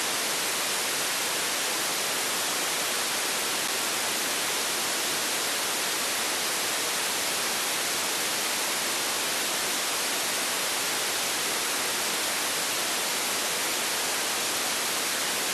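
Steady hiss of a software-defined radio receiver in FM mode on the 10-metre band with no signal present: the open-squelch noise of the FM demodulator between transmissions.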